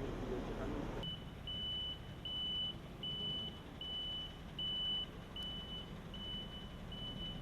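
Vehicle warning beeper sounding a run of high, even beeps, a little over one a second, starting about a second in; most likely the fire engine's reversing or aerial-ladder warning beeper.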